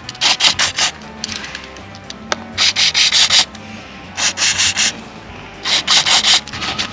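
Cloth wiping the sprayed brake-caliper piston of a scooter's front brake in quick back-and-forth strokes, in four short bouts with pauses between.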